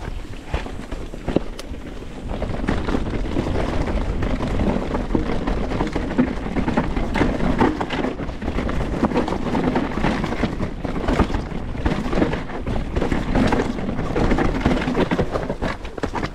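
Canyon Strive enduro mountain bike rolling down a rough trail: a continuous rumble of tyres over dirt and rock, with many sharp knocks and rattles, getting louder about two seconds in.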